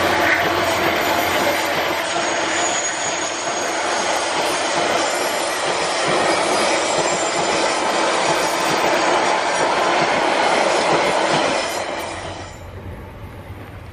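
EFVM passenger train's coaches rolling past close by: steady wheel-on-rail running noise and clatter with a thin, faint squeal from the wheels, falling away sharply near the end.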